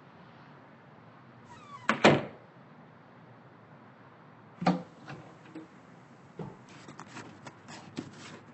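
A door creaks and shuts with a sharp click about two seconds in, followed by a single thump and a run of light knocks and taps.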